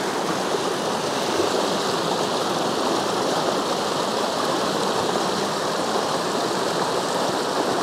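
Trout stream water rushing steadily.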